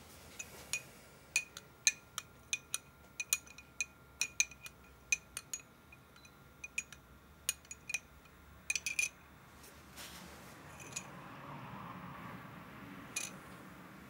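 Glass and metal clinking: a run of about twenty light, irregular clinks, each with a short ring, over the first nine seconds, then the clinks stop.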